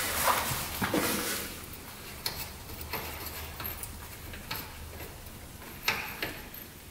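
Scattered metallic clicks and scrapes of a 19 mm socket wrench working the engine oil drain plug loose under a side-by-side, with a longer scraping stretch in the first second and single sharp clicks spaced a second or so apart after it.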